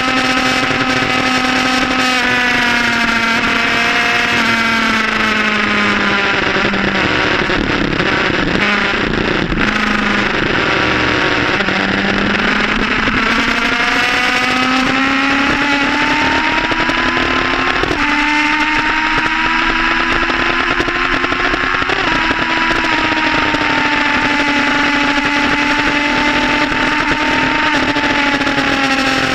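Sports motorcycle engine running loud at road speed, heard from a camera on the bike. The revs sag for the first several seconds, climb steadily under acceleration from a little before halfway, jump up sharply about 18 seconds in, then step down a little and hold.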